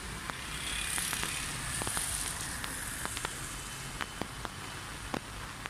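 Light rain pattering: a steady hiss with irregular sharp ticks and crackles scattered throughout.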